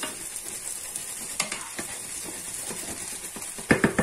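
Rice sizzling as it fries in oil in a nonstick frying pan, stirred with a wooden spatula: a steady hiss with scraping strokes, and a cluster of louder scrapes and knocks near the end.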